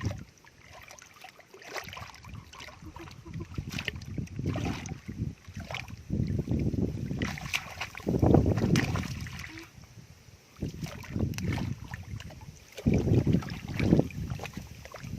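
Hands sloshing and splashing through shallow muddy water, in irregular surges, loudest about halfway through.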